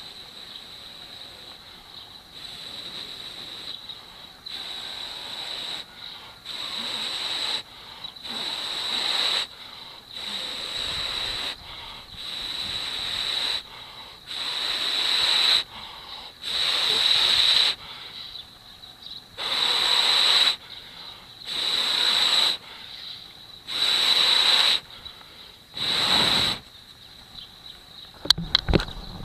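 A person blowing long breaths into a smouldering tinder bundle to bring it to flame: about a dozen breaths, roughly one every two seconds, growing louder as they go on. A few sharp clicks come near the end.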